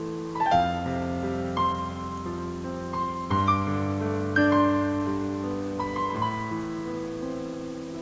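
Slow, gentle background music on piano: single notes and chords struck every second or two and left to ring, fading slightly near the end.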